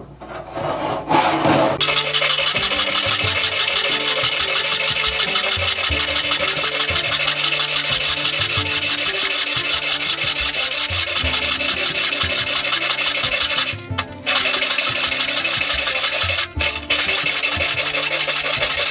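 Thumb-hole rip saw cutting along a thick hardwood block, fast, even strokes with two short pauses in the second half. Background music with low notes plays underneath.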